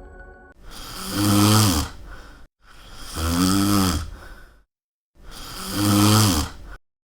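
A person snoring loudly: three long snores, each swelling to a low, rattling buzz, coming about every two seconds with sudden silence between them.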